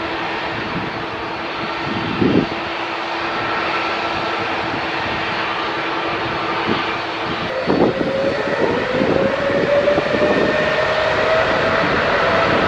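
Jet airliner engines running over a rushing noise: a steady whine, then, about seven and a half seconds in, a new whine that rises slowly in pitch.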